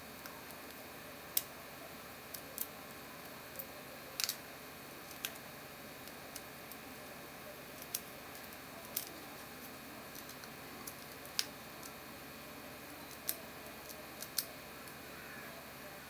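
Lock pick and tension tool working in the cross-shaped keyway of a 30 mm cruciform-key padlock: small sharp metal clicks and ticks at irregular intervals, about fifteen in all, over a steady faint hiss.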